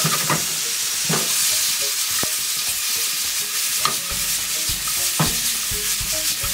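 Sliced onions and tomatoes sizzling in olive oil in a frying pan, stirred with a wooden spatula that knocks and scrapes against the pan now and then.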